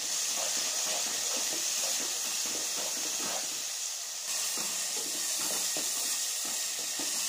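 Tomato and onion masala sizzling in hot ghee in a pan while it is stirred with a spoon: a steady hiss with many small crackles.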